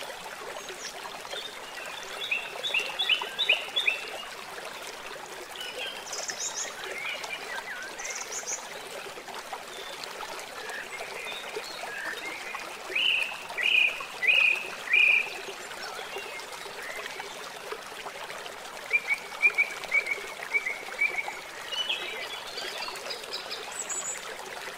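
Birds chirping in short scattered phrases over the steady rush of running water, as from a stream. The loudest chirps come in a few quick runs, with a fast trill a little past the middle.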